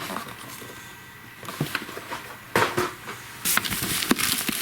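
Fireworks packaging being handled: plastic wrap and cardboard rustling and crinkling, with a few light knocks. It grows busier in the last second or so.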